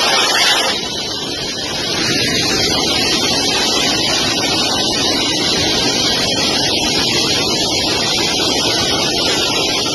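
Loud, steady engine noise and rushing air heard from inside a vehicle's cabin, dipping briefly about a second in.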